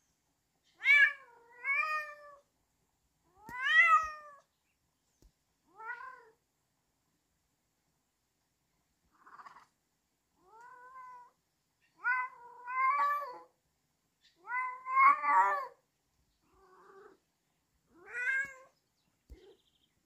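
Tabby-and-white domestic cat meowing over and over: about ten short meows with silence between them, some in quick pairs. Each meow rises and then falls in pitch.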